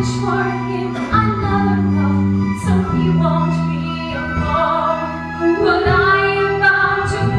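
A woman singing a musical-theatre ballad live, accompanied by a small pit band holding low notes that change about once a second.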